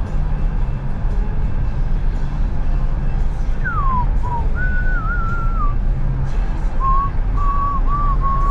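Steady road and engine rumble inside a moving car, with music playing low on the stereo. About halfway through a person starts whistling over it: a falling glide, then a wavering tune of short held notes that runs on to the end.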